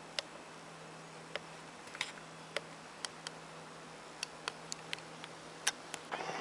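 Sharp, irregularly spaced clicks, about fifteen in six seconds, over a faint steady low hum, with a brief rustle near the end.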